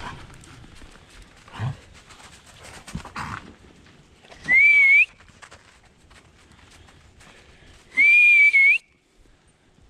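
A person whistling loudly twice, a short whistle then a slightly longer one, each rising in pitch at the end: a call to bring dogs back.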